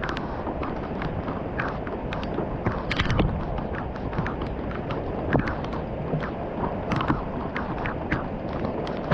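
Heavy rain falling steadily, with irregular drips and splats tapping on a nearby hard surface.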